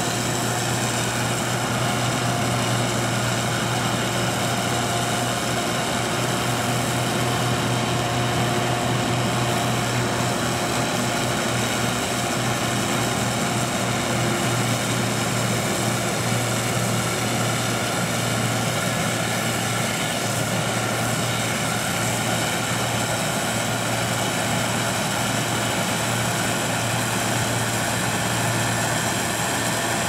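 Case IH Axial Flow 2388 combine harvester running steadily under load while harvesting corn: diesel engine, threshing rotor and corn header all working, a steady drone with a strong low hum and a layered machinery whine.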